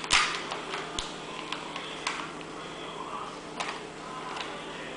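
Rubik's cube being twisted by hand: its plastic layers give a string of irregular clicks, the loudest just after the start.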